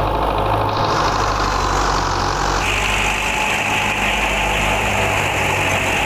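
Tractor diesel engine running steadily under load, belt-driving a wheat thresher. A higher hiss from the thresher's drum and belts joins about halfway through.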